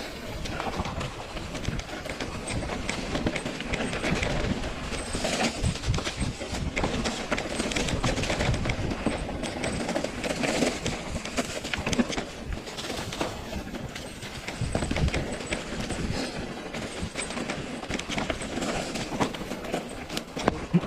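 Mountain bike descending a rough trail: a continuous clatter and rattle of the bike over rocks and roots, with many sharp knocks.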